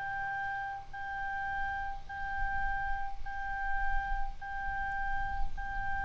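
Polish level crossing's electronic warning signal sounding its alert before a train arrives. It is a steady, pure high tone broken by a brief gap a little more often than once a second.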